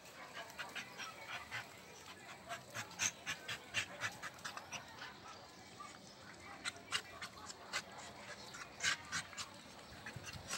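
Dogs play-fighting at close range: a string of short, quick, irregular breathy and scuffling sounds in clusters as one dog mouths another.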